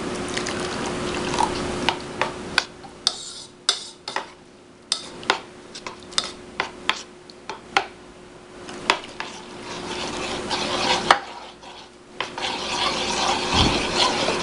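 Metal spoon stirring watery peanut sauce in a white ceramic bowl: a wet scraping swirl with frequent irregular sharp clinks as the spoon knocks against the bowl. Water is poured into the bowl near the start.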